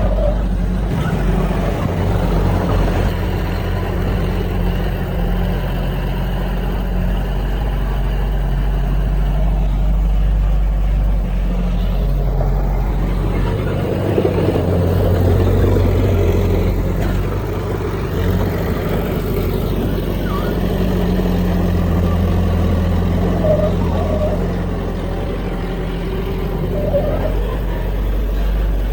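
Heavy diesel earthmoving machinery running, the engine note strengthening and easing off as the load changes.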